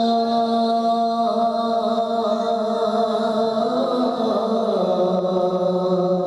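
Devotional chanting in long held notes. The pitch changes about a second in and slides lower around four to five seconds in.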